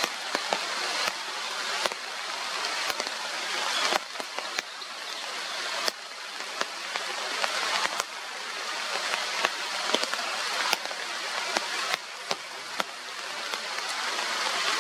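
Steady rushing water noise in rainforest, with many scattered sharp ticks. The noise swells and then drops back abruptly about every two seconds.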